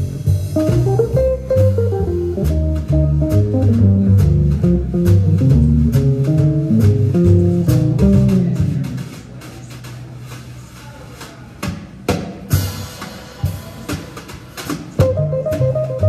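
Jazz trio of upright bass, archtop electric guitar and Gretsch drum kit playing a swinging tune, the guitar running melody lines over walking bass and drums. About nine seconds in the guitar and bass drop out for a short drum break of strokes and a cymbal crash, and the full band comes back in near the end.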